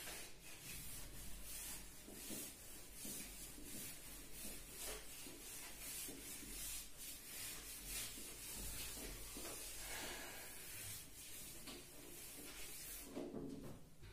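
A cloth wiping marker ink off a whiteboard in repeated rubbing strokes, faint and continuous.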